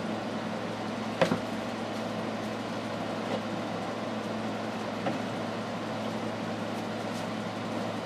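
Steady low hum and hiss of room noise, with a light knock about a second in and two fainter taps later.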